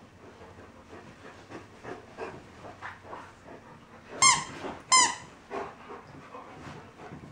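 Two dogs play-wrestling: a Bernese mountain dog puppy and another dog, with panting, mouthing and scuffling. About four seconds in come two sharp, high squeaks, under a second apart.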